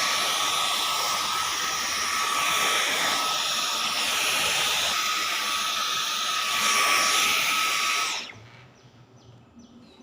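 Dyson vacuum cleaner running with a steady high whine over rushing air, switched off about eight seconds in and winding down quickly.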